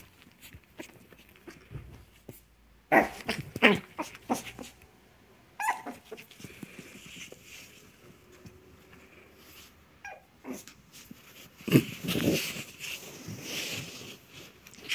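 Chihuahua puppy making small playful growls and yaps in short bouts, loudest about three seconds in and again from about twelve seconds. The duvet rustles as the puppy burrows and tugs at it.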